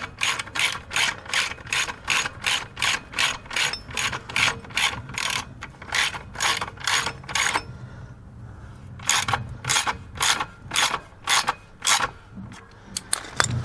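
Hand ratchet with socket clicking in quick repeated strokes, about three clicks a second, as it tightens an exhaust pipe clamp bolt. The clicking stops briefly about eight seconds in, then starts again.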